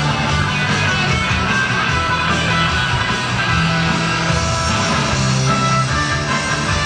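Guitar-driven music at a steady loud level, with held bass notes changing every second or so.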